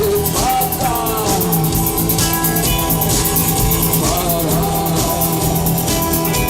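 Live rock band playing, with a drum kit keeping a steady beat under guitars and sliding melodic lines.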